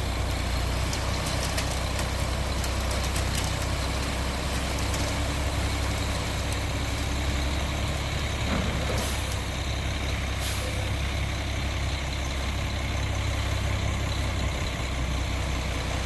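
Concrete mixer truck's diesel engine running steadily with a low rumble, with scattered clicks and knocks over it.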